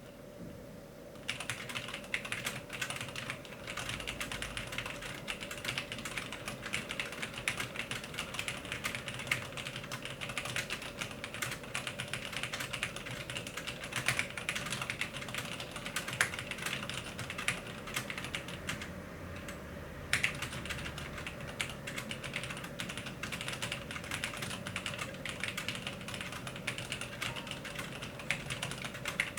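Continuous fast typing on a Cherry G80-1800 mechanical keyboard with linear Cherry MX Black switches and GMK Olive ABS keycaps: a dense stream of key strikes that starts about a second in, with a short lull about two-thirds of the way through.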